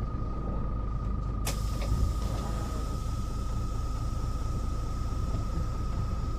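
Mercedes-Benz O407 city bus standing at a stop with its diesel engine idling: a steady low rumble with a steady high whine over it. A sharp click sounds about one and a half seconds in.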